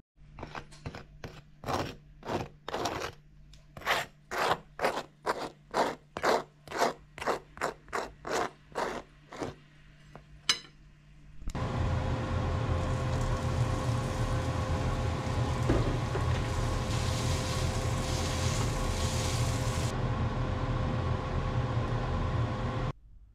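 A table knife scraping across buttered toast in a frying pan, about twenty quick strokes at roughly two a second, spreading butter and honey. After a short pause, meat and green onions sizzling in a frying pan, a steady hiss with a faint hum under it that cuts off suddenly near the end.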